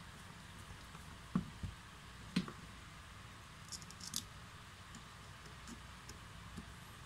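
A few soft knocks from a screwdriver working the screws on a cordless drill's gearbox end plate, the loudest about two and a half seconds in. Near four seconds comes a quick cluster of light metallic clicks as a small screw is handled by the fingers.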